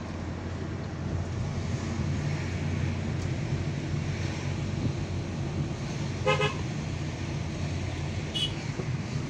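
Steady car engine and road noise heard from inside a moving car, with one short car-horn toot about six seconds in and a brief high chirp near the end.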